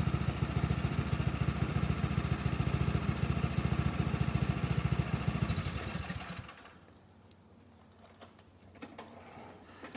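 Two-stage snowblower's small single-cylinder engine running steadily, then shut off about six seconds in and quickly coasting to a stop. A few light knocks follow in the quiet.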